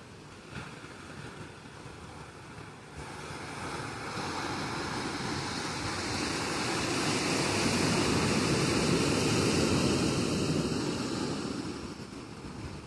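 Ocean surf washing onto the shore: one wave's rush swells from about three seconds in, is loudest in the middle, then fades as it draws back.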